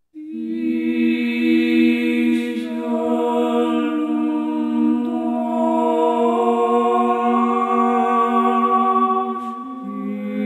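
Slow music of long held chords, several steady notes sounding together. It starts suddenly out of silence and the chord shifts a few times, around the middle and again near the end.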